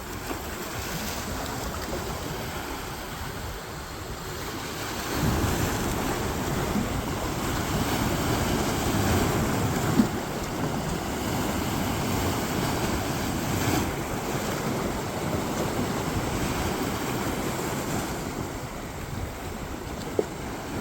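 Sea waves washing on the shore in a continuous wash that swells about five seconds in and eases off later, with wind on the microphone. Two brief sharp clicks stand out, one about halfway and one near the end.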